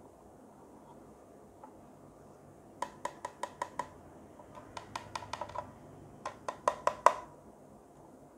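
Three quick runs of light, hard plastic clicks, five or six in each, from the BT-168D battery tester's plastic case and a 9V battery being handled together.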